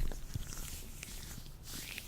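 Latex-gloved hands rubbing and handling close to the microphone: soft swishing rubs, one near the end, with small sticky clicks in between and a low bump at the very start.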